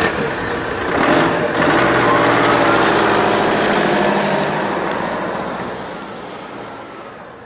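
A car pulling away and driving off, its engine note rising as it accelerates, then fading into the distance over the last few seconds.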